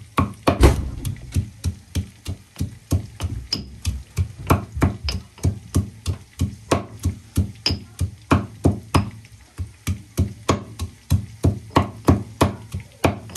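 Garlic being pounded by hand: a steady run of sharp knocks, about three a second.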